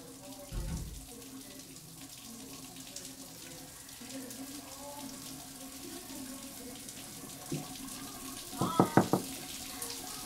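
Water running steadily from a tap or shower. A dull thud comes about half a second in, and a quick run of about four sharp knocks near the end.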